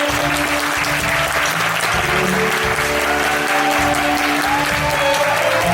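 Theatre audience applauding steadily over instrumental curtain-call music from the musical's band, which moves to a new chord near the end.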